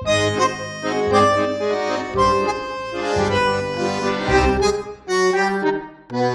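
Background music: an instrumental tune with held chords over a bass line, the notes changing about once a second.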